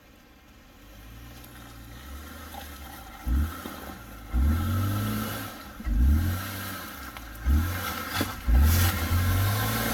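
A car engine revving in about five short bursts, each rising in pitch, as the vehicle works its way up over rock under load.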